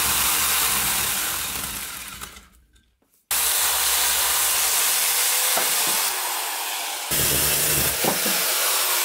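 Corded electric chainsaw running and cutting into a dry, old tree root, a steady hissing whine with the chain chattering through the wood. It falls away to near silence about two and a half seconds in, then comes back at full level abruptly, with a few short knocks as the bar works through the root.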